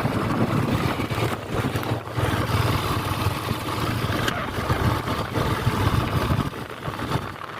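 A vehicle's engine running while on the move, an uneven low rumble with road noise.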